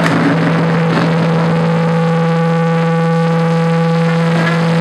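A single distorted note droning steadily through an electric guitar amplifier, held between songs over a low wash of room noise.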